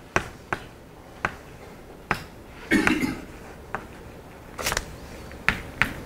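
Chalk on a blackboard as an equation is written: irregular sharp taps, about ten of them, with a short scraping stroke about three seconds in.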